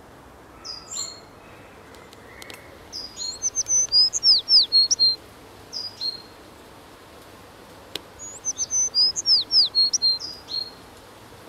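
A songbird singing: short two-note calls repeated every couple of seconds, and twice a longer quick run of whistled notes with falling slurs.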